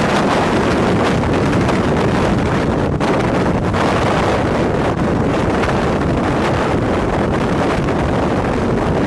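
Strong wind rushing steadily and buffeting the microphone.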